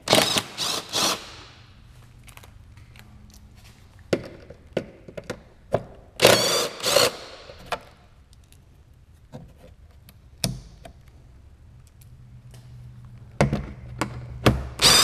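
Cordless impact wrench rattling in short bursts as it spins out the 10 mm underbody panel bolts, in three spells near the start, midway and near the end, with sharp clicks and clinks of bolts and washers between.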